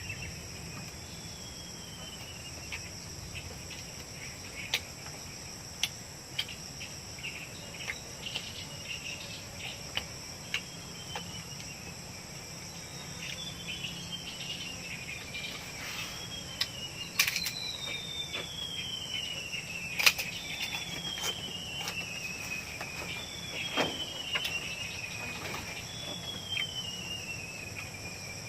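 Insects droning steadily in high tones, with a bird repeating a falling, trilled call every two to three seconds, more often in the second half. Scattered sharp clicks and knocks.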